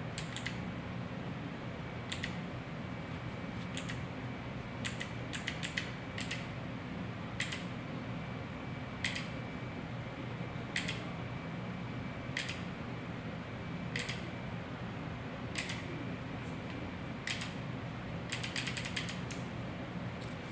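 Mechanical keyboard keys pressed one at a time, a sharp click every second and a half or two, with a quick run of several clicks near the end. A steady low hum runs underneath.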